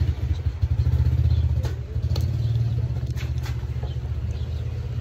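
A steady low engine rumble with a fast flutter in it, with a few faint clicks over it.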